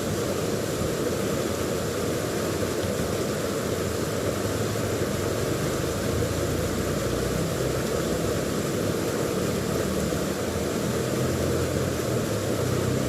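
Steady rush of river water flowing over rocks, with a faint low hum like a distant engine coming in about four seconds in.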